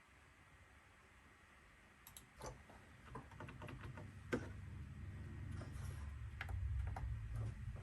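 Scattered clicks of buttons or keys being pressed, starting about two seconds in, some in quick runs. A low rumble builds underneath from about halfway.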